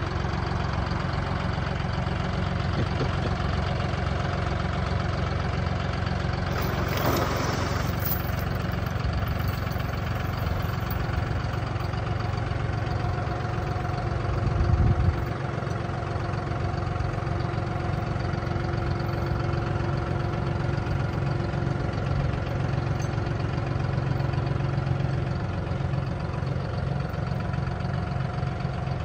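John Deere 5045E tractor's three-cylinder diesel engine running steadily, with a brief rise in level about fourteen seconds in.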